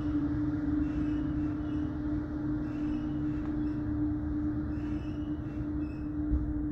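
Aerial tramway drive machinery running steadily while the haul rope draws the cabin up: a constant mid-pitched hum over a low rumble, with a single low thump about six seconds in.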